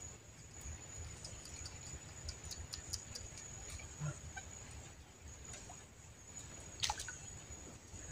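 Insects trilling, a steady high-pitched note, faint over a low background hum, with scattered small clicks and one sharper click about seven seconds in.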